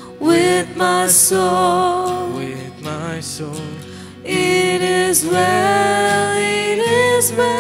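Christian worship song: a voice singing long, held phrases over a sustained instrumental accompaniment, with a short break about four seconds in.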